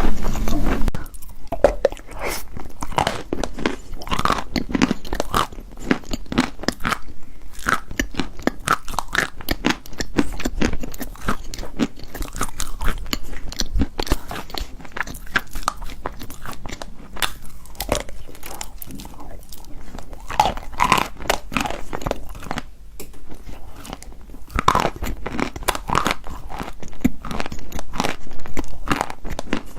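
Close-miked chewing of wet chalk: a dense, irregular run of crunches and small crackles that goes on throughout.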